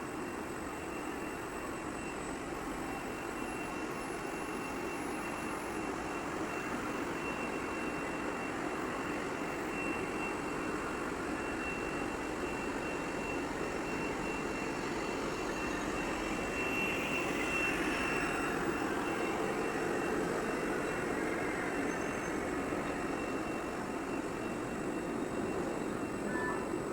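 Nylon monofilament extrusion line running: a steady machine noise with a thin, steady high whine through it.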